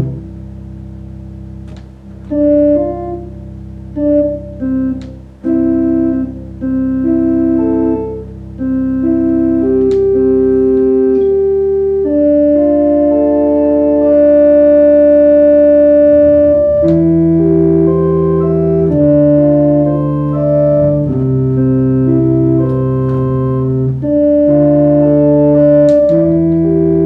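Baldwin HT2 electronic organ being played: sustained chords and a slow melody over a held low pedal note. About eleven seconds in, the pedal bass starts changing notes with the chords.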